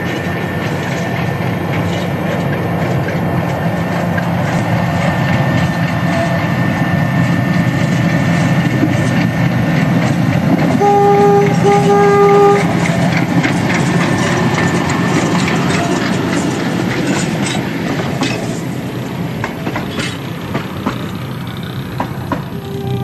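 Diesel-hydraulic locomotive NB30 running under load as it passes with its train, growing louder toward the middle. About eleven seconds in, its horn sounds for over a second. Afterwards, wheels click over the rail joints.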